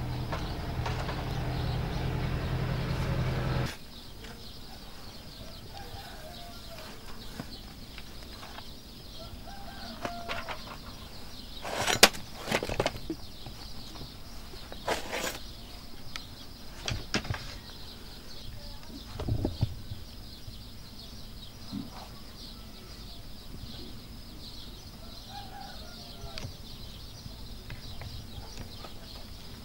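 A loud steady hum with a low drone cuts off suddenly about four seconds in. It leaves quiet outdoor ambience with a few short bird calls and a handful of sharp knocks near the middle.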